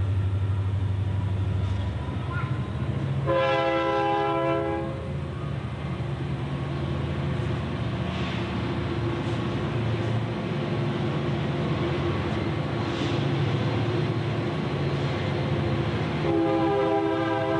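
Electric motor and belt-driven generator running with a steady low hum. Twice a loud horn-like tone of several pitches sounds over it: once about three seconds in, for a second and a half, and again near the end.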